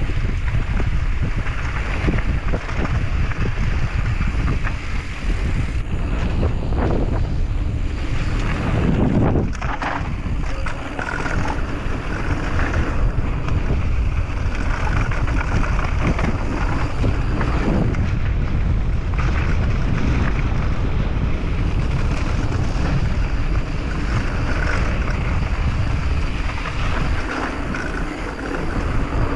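Wind buffeting the microphone of a camera on a mountain bike moving fast downhill, with the knobby tyres rolling over the dirt trail and a few knocks from bumps along the way.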